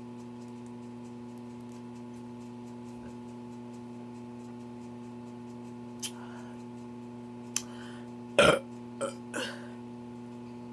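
A woman burps once, short and loud, about eight seconds in, with a few softer short sounds before and after it. A steady electrical hum runs underneath.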